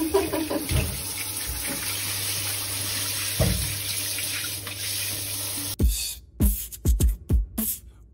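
A shower running, water spraying steadily onto the shower tray. About six seconds in it cuts abruptly to music with a heavy, punchy beat.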